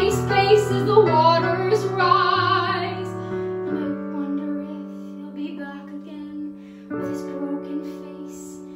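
A woman singing a show tune over piano accompaniment, ending on a held note with vibrato about three seconds in. The piano then carries on alone with sustained chords, striking a new chord near the end.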